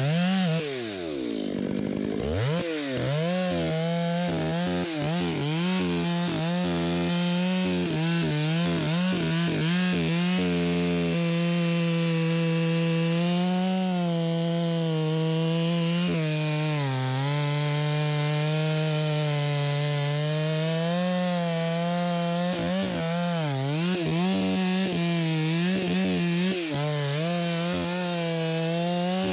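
Stihl MS661 two-stroke chainsaw cutting into a white fir trunk at full throttle, its engine pitch sagging and recovering as the chain bites under load. About a second in, the revs drop off sharply and come straight back up.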